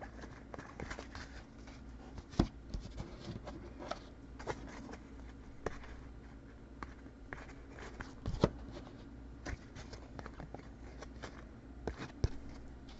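Trading-card packs and boxes being handled on a table: scattered light taps, clicks and rustles, with a sharper knock a couple of seconds in and another past the middle, over a faint steady hum.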